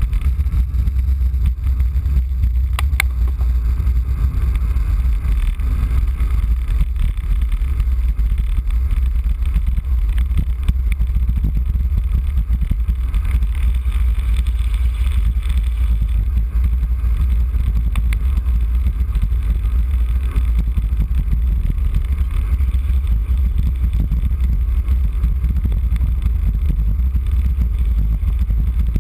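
Wind buffeting the microphone of a camera on a road bike during a fast descent: a steady, heavy rumble with a fainter rush of road noise over it.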